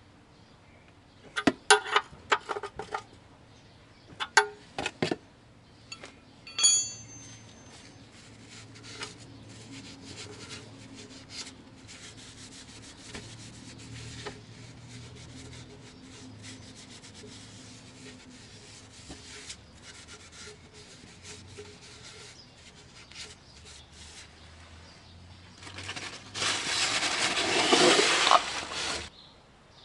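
Wrench clicking on a car's oil pan drain plug in short bursts and a brief metallic ping. Then faint scraping as the plug is turned out by hand, and near the end a loud rush of oil pouring for about three seconds.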